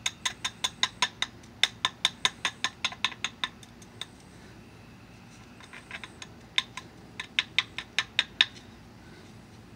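Copper-tipped billet tapping rapidly along the edge of a flint piece, a run of sharp clinks about five a second, a short pause, then a second run: small bits being knocked off the edge to clean up the platform.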